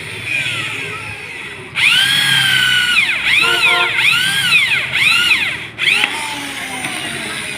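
Electric drill driving screws, its motor whine rising and falling in pitch in a run of short trigger pulses, loudest from about two seconds in until about six seconds.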